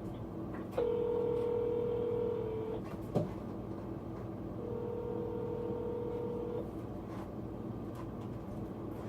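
Telephone ringback tone through a phone's speakerphone: two steady two-second rings, four seconds apart, while an outgoing call waits to be answered. A single short click sounds between the rings.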